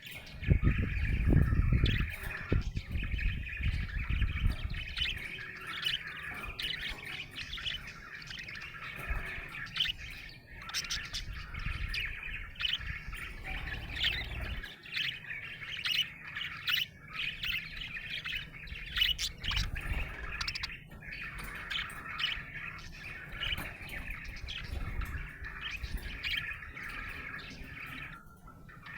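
Budgerigar chirping and warbling continuously, a dense run of short chirps over a steady chatter. A low rumble accompanies the first few seconds.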